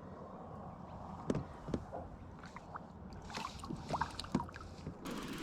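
Water sloshing, with a scatter of small splashes and drips.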